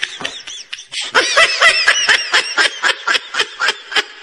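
A man laughing hard in quick, high-pitched bursts, several a second, with a brief pause about half a second in.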